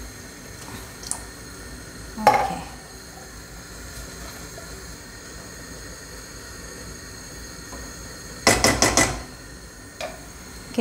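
Metal spoon clinking and scraping against a stainless steel pot while stirring tomato sauce. There is one sharp ringing clink about two seconds in, and near the end a quick run of four or five clanks.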